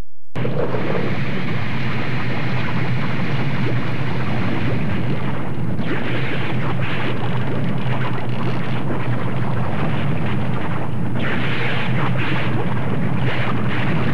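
Loud, steady rumbling noise with a low hum underneath, starting and cutting off abruptly, with brighter hissing surges a little after the middle and near the end.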